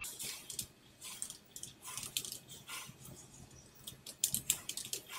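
Computer keyboard keys clicking as an email address is typed: irregular taps, with a quick run of keystrokes near the end.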